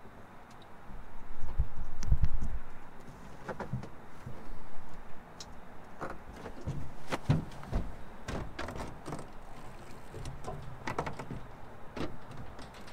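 Knocks and clunks of someone moving about a fishing boat's deck and handling gear: a string of short sharp knocks through the second half. The loudest part is a low rumbling thump about two seconds in.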